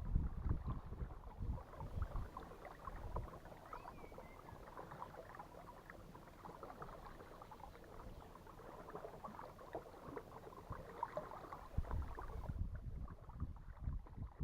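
Paddling an inflatable canoe: water splashing and trickling off the paddles and along the hull in a stream of small crackly splashes. Low rumbling thumps come at the start and again near the end.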